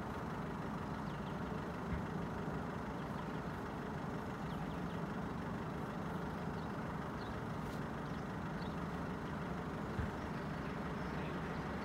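A heavy diesel engine idling, a steady low rumble with an even hum.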